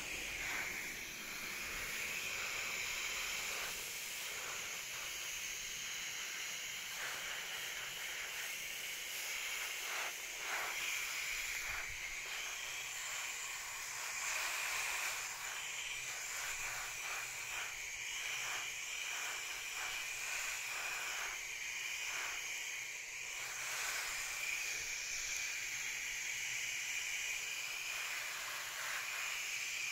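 Garden hose spray nozzle hissing steadily as the water showers onto leafy plants.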